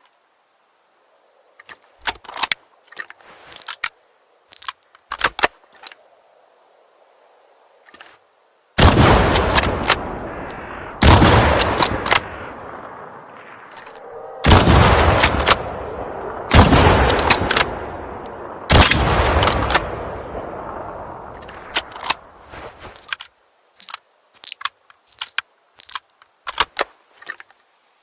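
Mosin–Nagant ("three-line") bolt-action rifle sound effect. Sharp metallic clicks are followed by five loud shots, two to three seconds apart, each with a long echoing tail. A further run of metallic clicks comes near the end.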